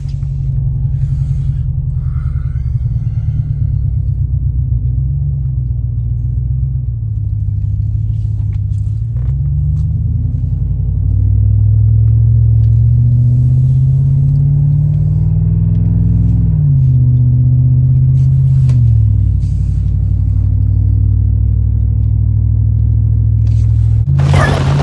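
A vehicle's engine and road rumble heard from inside the cabin, a loud low drone. Its pitch wanders, climbs steadily for several seconds past the middle, then drops sharply, and does so once more a little later.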